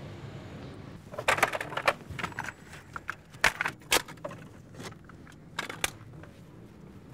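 Hands rummaging through a car's glove compartment: papers crinkling and small objects clicking and clattering in irregular bursts from about a second in until about six seconds in.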